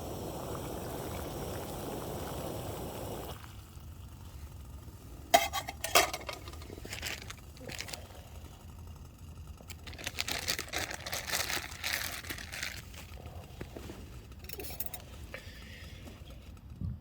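Camping stove burner running steadily, then shut off about three seconds in. Then clinks of a pot and mug, and hot water poured into a mug for a brew of tea, with a few more small knocks near the end.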